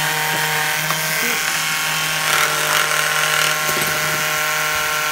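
Ryobi cordless sander running steadily with an even motor hum as it is pressed on and worked along a plywood edge.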